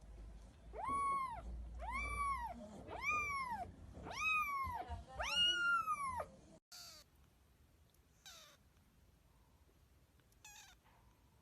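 Kitten meowing: five loud, high calls about a second apart, each rising then falling in pitch, followed after a short break by a few fainter, shorter mews.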